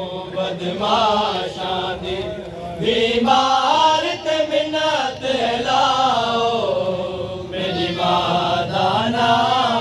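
Male voice chanting a noha, a Shia mourning lament, in long drawn-out lines whose pitch wavers up and down, sung into a microphone.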